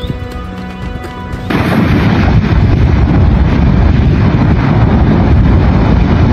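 Background music with held notes. About a second and a half in, a loud, dense rushing rumble takes over and holds steady: a lava fountain erupting at close range, jetting and spattering molten rock.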